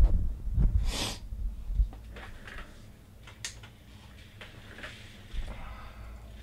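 Handling noise from trading cards in hard plastic holders being moved on a table: low thumps in the first couple of seconds and scattered light clicks after, with a short breathy sniff about a second in.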